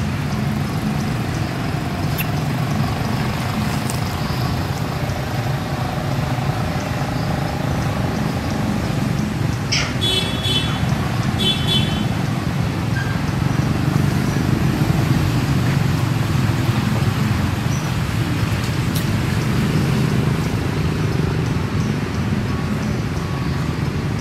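A steady low rumble runs throughout, with two short high-pitched calls about ten and eleven and a half seconds in.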